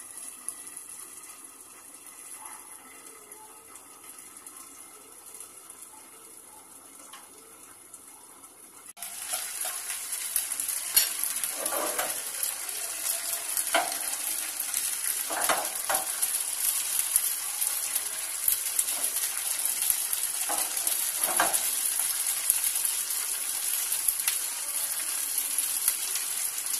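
Faint steady hiss at first, then, about a third of the way in, a sudden loud sizzle as semolina dosa batter fries in a hot oiled nonstick pan. The sizzle goes on evenly, with a few short knocks and scrapes of the pan in the middle.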